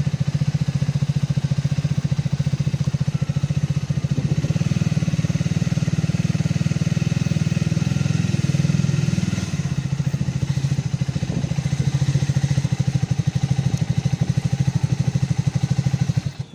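Motorcycle engine running at low speed with a rapid, steady pulse of firing strokes, easing slightly about two-thirds of the way through, then stopping suddenly at the end.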